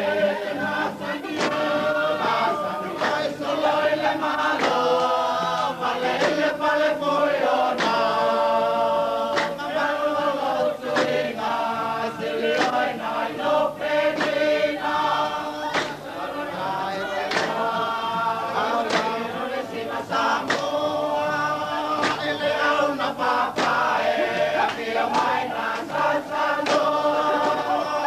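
A group of voices singing a Samoan song together in harmony, with sharp beats keeping time through it.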